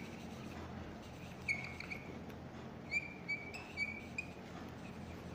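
Felt-tip marker squeaking against a whiteboard as words are written, in about six short squeaks starting about a second and a half in, over a faint low room hum.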